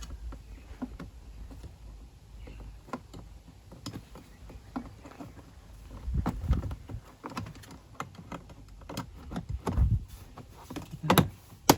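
Plastic interior door-handle trim being handled and pressed back into place: scattered small clicks and taps, with a few louder sharp clicks near the end as it seats.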